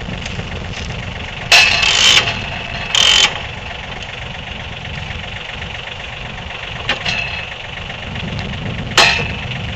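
Sawmill engine running steadily, with two loud, harsh metallic bursts about a second and a half and three seconds in, and a sharp knock near the end.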